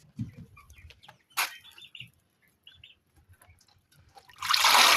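Scattered small clicks and a few faint bird chirps, then near the end water starts pouring with a sudden, loud, steady rush.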